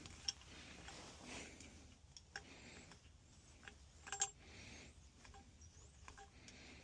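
Faint scattered clicks and light metal clinks of hand tools against a gas pipe fitting while old pipe dope is being cleaned out of the line, with one brighter ringing clink about four seconds in.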